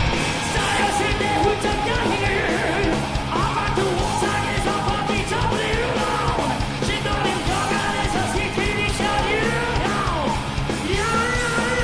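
A male singer sings a rock song live over a full rock band with drums and guitars, his voice rising and falling in long held phrases.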